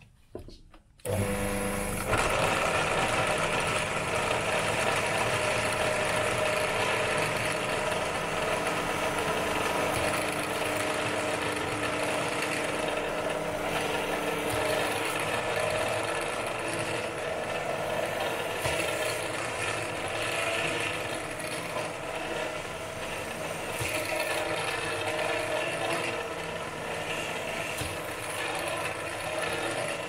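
Benchtop drill press starting up about a second in and running steadily, its bit drilling holes through the metal back cover of a JK BMS.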